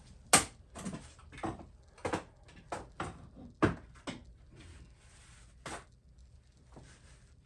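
Paper towel being fetched and laid out on a workbench: a string of irregular knocks, taps and rustles of handling, the loudest just after the start.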